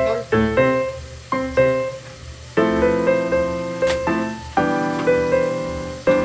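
Background piano music: notes and chords struck one after another and left to ring out, with a longer held chord from a little under halfway through.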